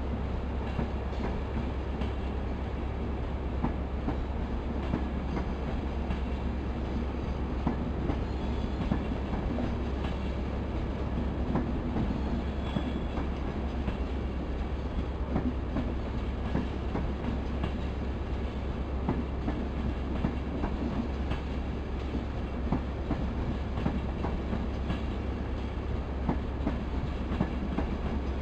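East Coast passenger coaches rolling slowly past a station platform, a steady rumble with wheels clicking over rail joints and pointwork throughout.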